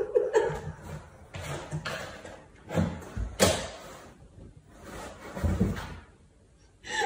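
A cat scrabbling and bumping against a cardboard cat house: irregular scrapes and thumps on the cardboard, with the sharpest knock about three and a half seconds in.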